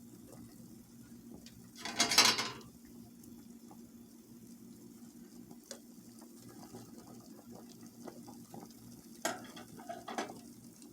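Kitchen utensils and dishes handled during cooking: one loud scraping clatter about two seconds in, then a few lighter knocks and clinks near the end, over a steady low hum.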